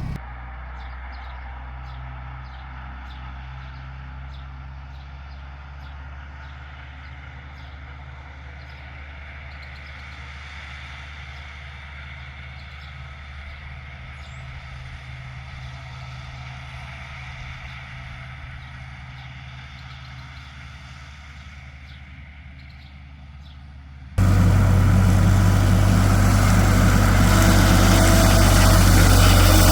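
LS tractor's diesel engine running steadily. Near the end it suddenly becomes much louder and fuller, as if heard from right beside it.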